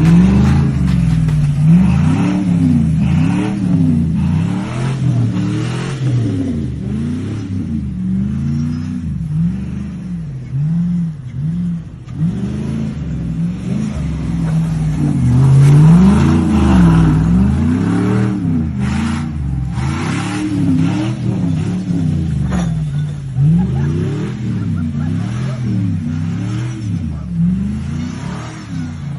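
Truck engine revving up and falling back over and over, its pitch rising and dropping every second or two.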